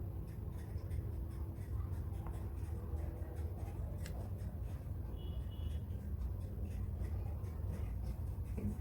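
Light scraping and rubbing of a utensil in a mixing bowl as soap ingredients are worked, over a steady low hum, with a single sharp click about four seconds in.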